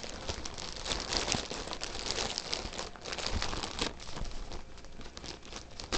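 Packaging being handled and opened by hand: a dense run of short crackles and rustles.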